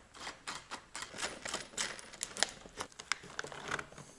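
Irregular small clicks and crackles as the two halves of a cut Chevy Volt lithium battery module are pulled apart by hand: the plastic cell frames snapping and creaking as they separate.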